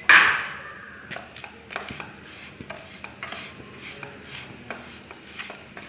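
A spatula stirring and scraping grated coconut and sugar around a frying pan, in short strokes about two to three a second. It opens with one loud rasping rush at the very start.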